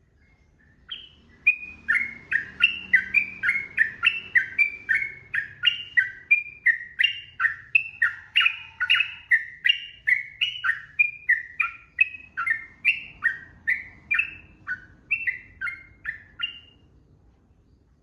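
Sooty-headed bulbul (trucukan) singing a long, unbroken run of short up-and-down whistled notes, about two a second. This fast continuous delivery is what keepers call ropel. It starts about a second in and stops near the end.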